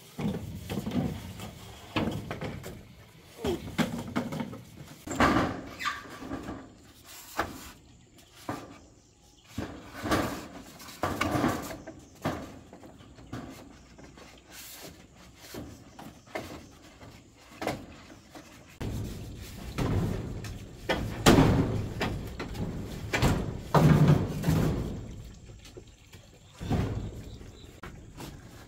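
Irregular knocking and clattering of objects being handled, with heavier thuds about two-thirds of the way through.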